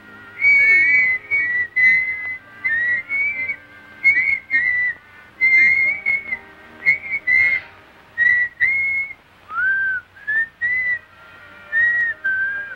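A boy whistling a string of short, high notes, many sliding upward, with brief pauses between phrases, over faint background music.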